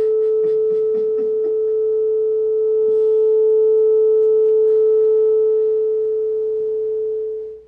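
A loud, steady, mid-pitched electronic tone with faint overtones, holding one pitch and cutting off suddenly near the end. Faint clicks sound underneath during the first second or so.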